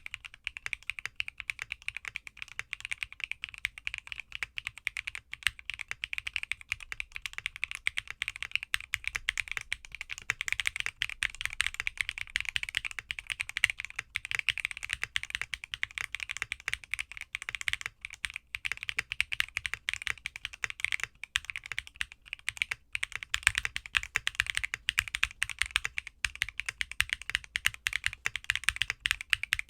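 Typing on a Neo65 aluminium 65% mechanical keyboard in its gasket mount, fitted with KTT Halu Halo v2 switches and XDA-profile keycaps: a steady, fast run of keystrokes without pause.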